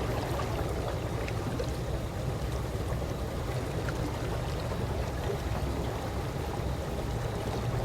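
Calm pool water sloshing gently: a steady low watery wash with faint small drips and splashes scattered through it.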